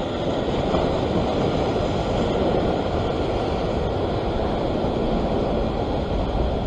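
Ocean surf surging and washing over the rock ledge below, a steady rush of white water, with wind rumbling on the microphone.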